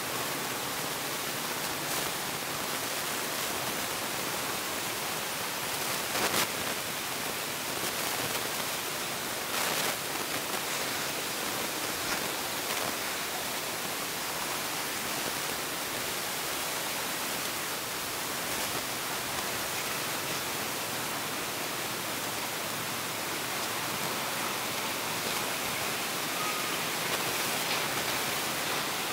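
Steady, even outdoor background hiss with no clear pitched source, broken by a few short faint clicks, the clearest about six and ten seconds in.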